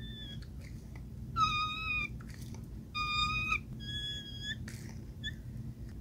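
Wacaco Picopresso hand espresso maker being pumped. Its piston gives a short, high, steady squeak on each of five strokes, about every second and a half, over a low hum.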